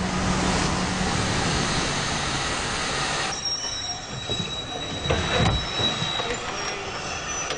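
Steam locomotive blowing off steam in a loud hiss for about three seconds, then a thin, steady high squeal of wheels and brakes as the train comes to a stop, with a few knocks about five seconds in.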